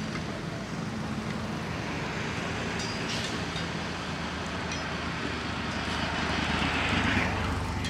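Steady road traffic noise with a low engine hum, swelling as a vehicle passes near the end.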